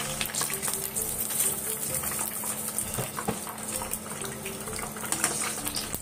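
Hot oil sizzling and crackling in a frying pan as the last batch of frozen French fries is lifted out with a wire-mesh strainer. The fries are frying on high heat and are done, crisp and golden.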